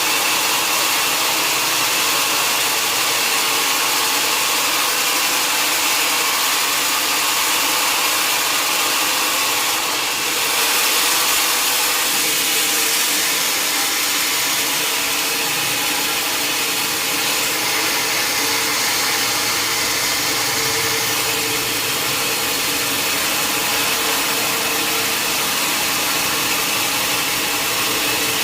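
Sawmill saw machine running steadily, cutting through a long mahogany log, a continuous loud whine and hiss.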